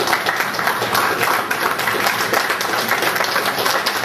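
Audience applauding, with many hands clapping steadily.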